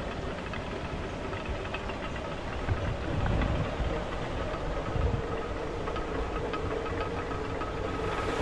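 Traditional Nepali village water mill running: a steady low rumble with a fast, uneven clatter of small knocks.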